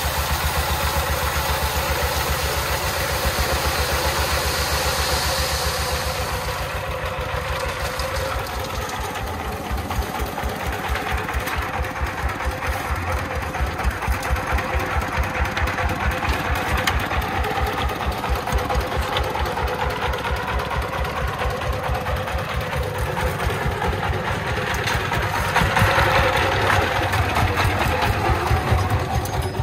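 Single-cylinder diesel engine of a three-wheeled công nông dump truck running with a steady, even chug. For the first few seconds gravel hisses as it pours off the tipped bed. The engine gets louder for a moment near the end.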